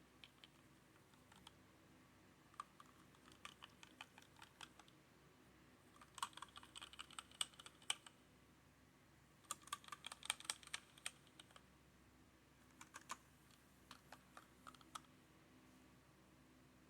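Keys of a HyperX Alloy Origins Core mechanical keyboard with linear red switches clacking under quick presses, in four short bursts of rapid clicks separated by pauses.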